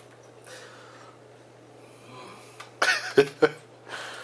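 A man coughs sharply about three times in quick succession, about three seconds in, his throat burning from extra-hot fried chicken, with a breath after.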